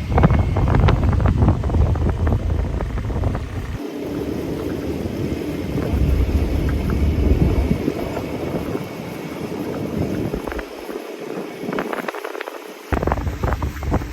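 Rushing river water, with wind buffeting the microphone in heavy low rumbles. The sound changes abruptly about four seconds in and again near the end.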